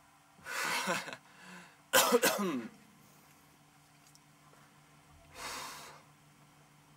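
A person coughing: a few short coughs in the first three seconds, the loudest about two seconds in, and one more breathy cough a little after five seconds.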